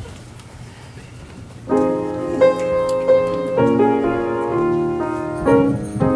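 Low room noise, then a little under two seconds in, a piano starts playing held chords that change about every half second to a second.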